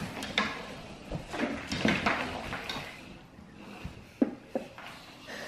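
Scraping and scuffing with several sharp knocks as a puppy tugs and drags a rubbery tube toy across a laminate floor against the base of a kitchen cabinet.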